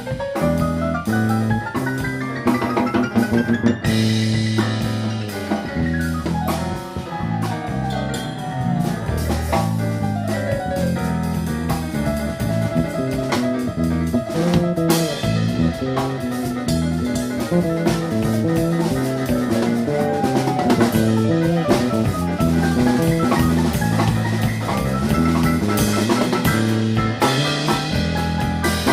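Live jazz ensemble playing a chacarera, with drum kit, bass, piano and horns. The drums and a stepping bass line run under quick melodic runs.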